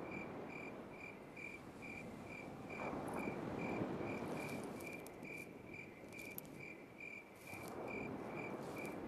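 A cricket chirping steadily, about two chirps a second, over a rushing hiss that swells about three seconds in and again near the end.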